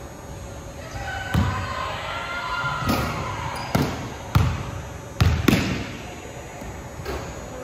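Basketballs bouncing on a hardwood gym floor: about half a dozen sharp thuds at uneven intervals, echoing in the large hall, the loudest pair about four and a half and five and a half seconds in.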